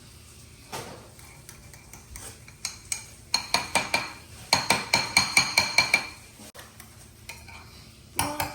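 A fork stirring in a bowl, clinking against its side in quick strokes of about five a second, each with a brief ring. The clinks are loudest in the middle of the stretch and die away near the end.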